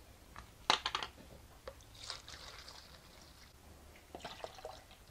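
Timber primer poured from a metal can into a plastic tub, a soft trickling pour. A sharp clatter of the can knocking against the tub a little under a second in is the loudest sound, with a few lighter clicks later on.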